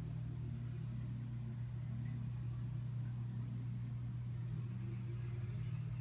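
Steady low hum of a running aquarium pump, an even drone with no change.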